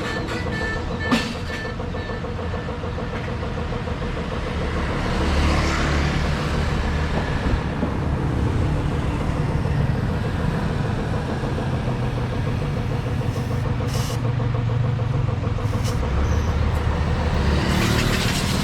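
Motorcycle under way on a road: engine running with steady wind and road noise on the action camera's microphone, and one sharp click about a second in.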